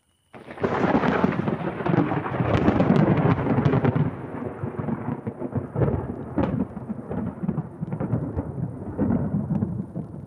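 A loud thunderclap: a sudden crack about a third of a second in, then a long rolling rumble with repeated crackles that slowly dies away.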